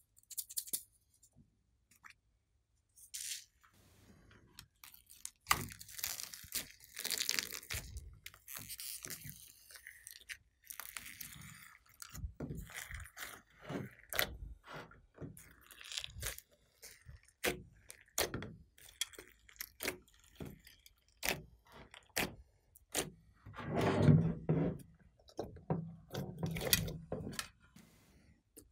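Glossy slime being pressed and folded by hand over clay, glitter and beads: a run of sticky clicks, pops and squishes, with a louder squelching patch a few seconds in and again near the end.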